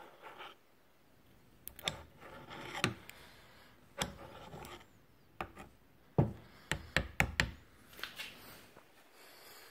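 Brushcutter gearhead parts being handled on a workbench: irregular knocks and clicks with short rasping scrapes, and a quick run of sharp knocks a little past the middle.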